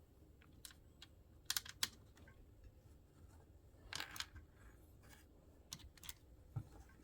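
Scattered light clicks and taps at irregular intervals, a small cluster about four seconds in: small Torx screws being set by hand into the screw holes of a Dell Chromebook 3100 laptop's case.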